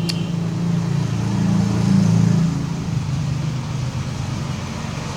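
Road traffic: a motor vehicle's low engine rumble that swells to its loudest about two seconds in and then eases off. A brief click sounds right at the start.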